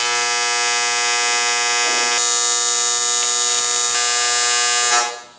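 AC TIG welding arc on thin aluminum sheet: a loud, steady electric buzz that starts abruptly and dies away about five seconds in, as one tack weld joins the aluminum kayak hull panels.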